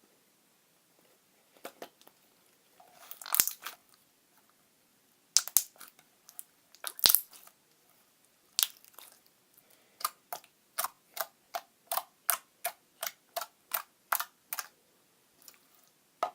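Clear slime being squished and poked, making short, sharp wet clicks and pops. A few louder, scattered pops come first, then a steady run of about a dozen pops at roughly three a second.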